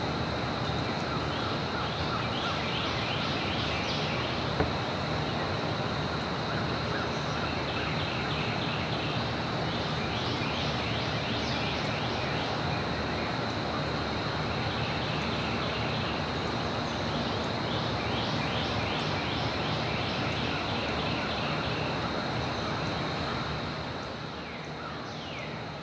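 Outdoor ambience by the bayou: a steady background rush with repeated bursts of rapid high chirping calls, fading out near the end.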